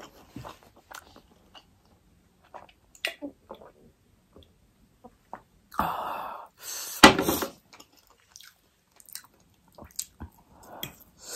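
Close-miked chewing of food, with soft wet mouth clicks and smacks. About six seconds in comes a loud breathy huff with one sharp click, the loudest sound, and there is another breathy exhale near the end.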